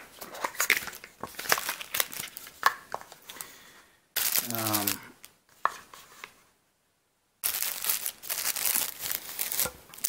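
Clear plastic packaging sleeve crinkling and crackling as it is handled and pulled off a metal tactical pen, in two stretches separated by a silent gap, with a short word spoken about halfway through.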